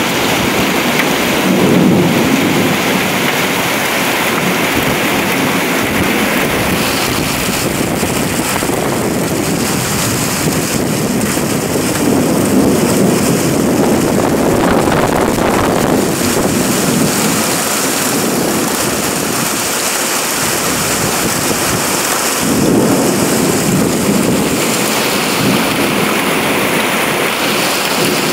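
Heavy rain pouring steadily in a thunderstorm, with rumbles of thunder swelling and fading about three times: once about two seconds in, near the middle and again in the last third.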